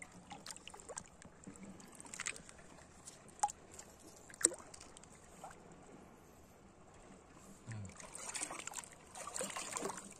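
Hands scooping and sifting sand for clams in shallow seawater: gentle splashing and trickling with a few sharp clicks, and louder splashing near the end.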